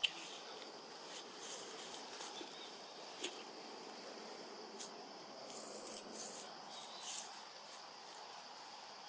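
Faint outdoor background with insects droning steadily at one high pitch, and a few short scratchy noises about six and seven seconds in.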